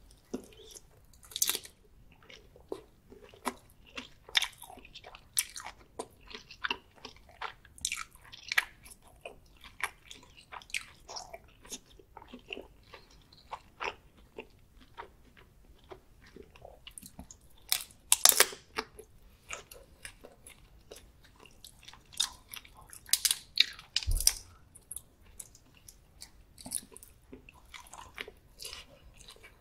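Close-miked biting and chewing of garlic-butter prawn meat: many irregular sharp mouth clicks and smacks, with louder clusters about eighteen and twenty-three seconds in.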